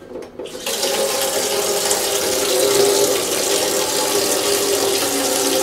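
Kitchen faucet running into an empty clear plastic container in the sink, filling it with water. The flow starts under a second in and then runs steadily, with a faint ringing note under the rush of water.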